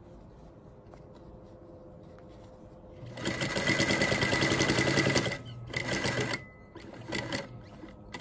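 Straight-stitch sewing machine running in short stop-start runs while stitching a small box through two layers of fabric. It is quiet for about three seconds, then stitches steadily for about two seconds, then gives two short bursts.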